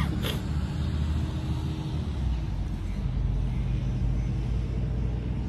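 Road traffic going by: a steady low rumble of car engines and tyres, with a faint engine hum that shifts in pitch about halfway through.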